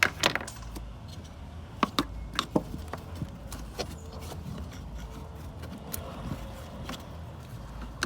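Hand tools clinking and knocking while the AC liquid and low-side pipes are being disconnected from the car's AC system: a scatter of sharp clicks, the loudest right at the start and a cluster around two seconds in, over a low steady rumble.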